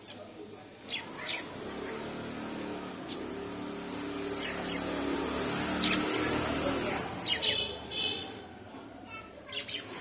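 Pet budgies and finches chirping: short, high calls here and there, with a burst of louder calls about seven seconds in and more just before the end.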